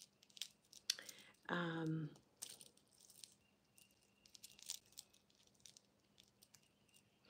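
Faint rustling and light clicks of small jewelry pieces being handled and sorted by hand, with a short hummed 'mm' from a woman's voice about one and a half seconds in.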